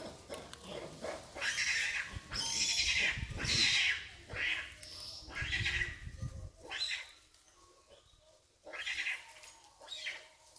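Baby long-tailed macaques giving high-pitched calls in a string of short bursts, with a low rumble under them in the middle.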